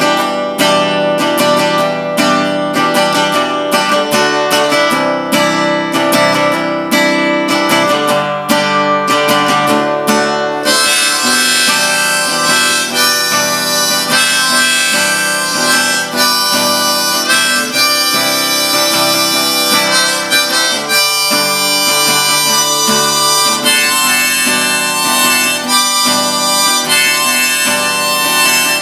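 Instrumental song intro: acoustic guitar strummed in a steady rhythm, with a harmonica coming in about ten seconds in and playing the melody over the guitar.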